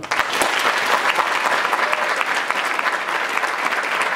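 Audience applauding, breaking out suddenly all at once and then holding steady.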